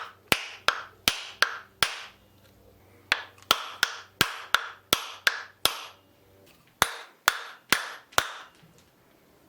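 Repeated hammer strikes on wood, about three blows a second in three runs with short pauses between, each blow sharp with a brief ringing tail.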